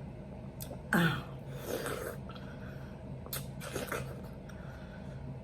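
Close-up wet chewing and slurping of juicy watermelon topped with fruit and whipped cream, in several short bursts, the loudest about a second in.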